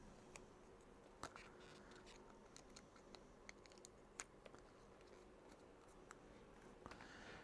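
Near silence with scattered faint clicks and ticks, about a dozen, from small plastic building-brick pieces and a sticker sheet being handled.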